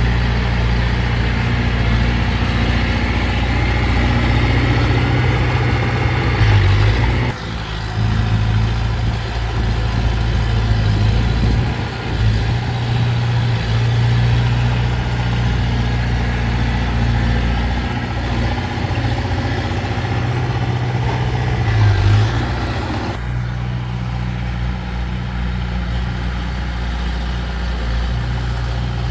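Heavy diesel engine of earth-moving machinery running steadily. The sound changes abruptly twice, about seven seconds in and again a little after twenty seconds.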